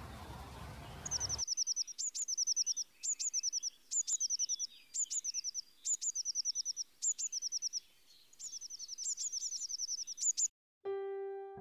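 Eurasian blue tit singing: about ten short bouts, each a high opening note followed by a fast trill of quick descending notes. A second of steady hiss comes before the song, and piano music starts near the end.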